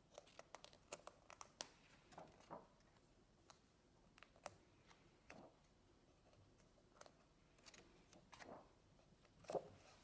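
Faint paper handling as the pages of a paperback colouring book are turned by hand: quick small clicks and ticks of paper, then several soft page-turn swishes, the loudest near the end.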